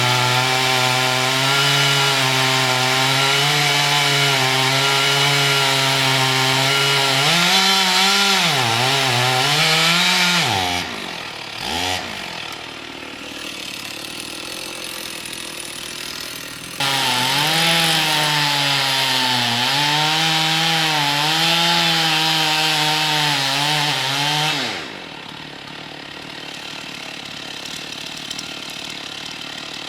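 Chainsaw running at full throttle and cutting wood, its pitch wavering and dipping as the bar loads up. It drops off about ten seconds in, leaving quieter engine noise, then cuts again from about seventeen seconds to twenty-five seconds.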